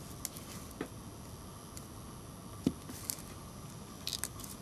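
Small clicks and taps of a screwdriver on the plastic housing of an LG B1300 mobile phone as its screws are tightened, over low room noise. The clicks are scattered and few, the loudest a little past halfway, with a quick run of faint high ticks near the end.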